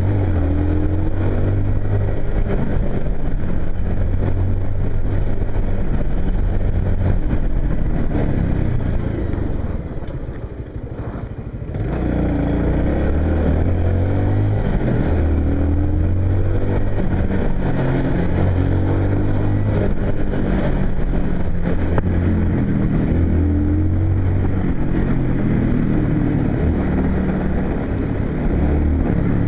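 Two-stroke motorcycle engine running while riding, its note stepping up and down with throttle and gear changes. About ten seconds in the throttle is closed and the engine drops off for a second or two, then pulls again.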